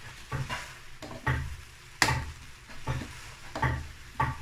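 Slotted metal spoon scraping and knocking against a kadai as cooked rice and vegetables are tossed together, a stroke about every half second to second, over a faint sizzle.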